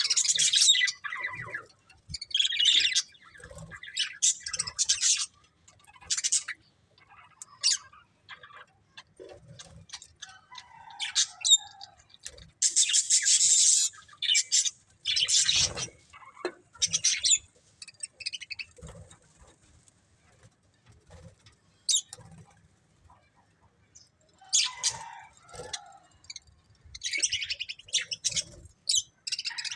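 Pet budgerigars chirping and warbling in irregular bursts with short quiet gaps between them.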